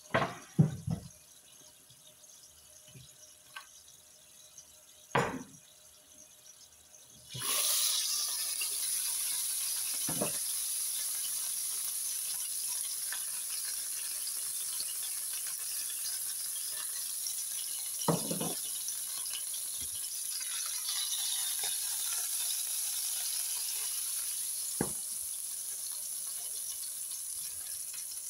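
Beef sizzling in a hot frying pan: a steady hiss that starts suddenly about seven seconds in, when the meat goes into the pan. A few sharp knocks of utensils come before and during it.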